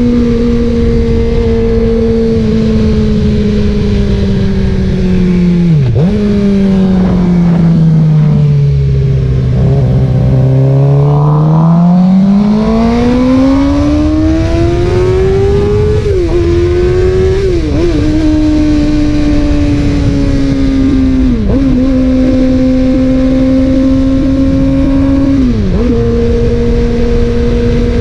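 Suzuki GSX-R600 inline-four running through an M4 slip-on exhaust under a ride at part throttle, the bike still being broken in. The engine note holds steady, drops away for a few seconds and then climbs again as it pulls, with several brief dips in pitch along the way.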